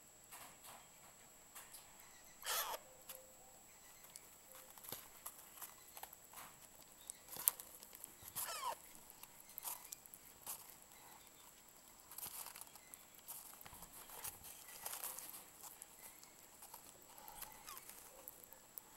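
Alexandrine parakeet chicks being syringe-fed, making faint scattered squeaks and chirps with soft feeding clicks. The two clearest calls come about two and a half seconds in and about eight and a half seconds in.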